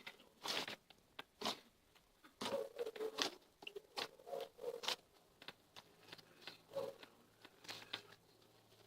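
Slime being squeezed and stretched by hand, giving irregular soft sticky clicks and pops.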